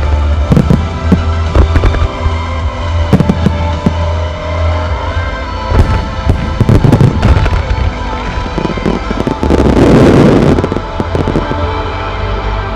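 Aerial fireworks shells bursting in a run of sharp bangs over music. About three-quarters of the way through, a dense rush of noise from many bursts at once is the loudest part.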